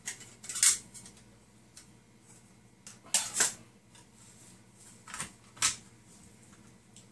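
Small folding metal pot stand being handled and set down on a table: several short, sharp metal clicks and clacks, the loudest about half a second in and two pairs later.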